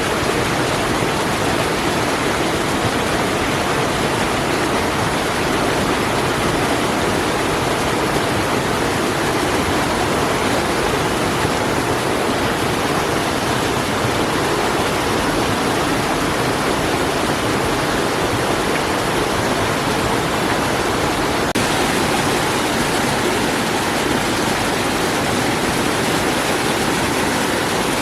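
Waterfall: falling water rushing steadily, a dense even noise with a slight change in tone about three quarters of the way through.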